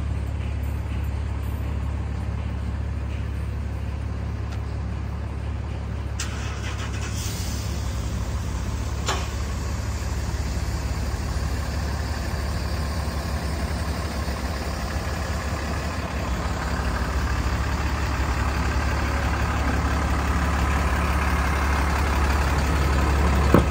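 Cummins 6.7 L turbo diesel in a Ford F750 truck idling steadily, a constant low hum, with two brief sharp clicks in the first half.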